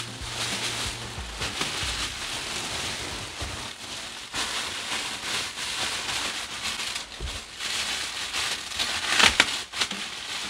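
Thin plastic wrapping crinkling and rustling as it is pulled off a massage seat, uneven, with its loudest crackling spell about nine seconds in.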